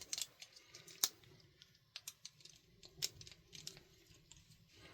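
Scattered light clicks and small knocks from a hair shear being handled and set into a sharpening jig's clamp. The sharpest click comes about a second in, and another cluster around three seconds.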